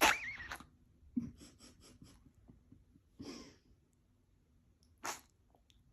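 An animal sneezing: one loud sneeze right at the start with a brief squeaky falling note, then smaller sneezes about a second in, about three seconds in and about five seconds in.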